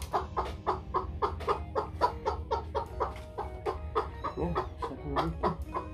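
Serama bantam chicken clucking in quick, regular notes, about four a second.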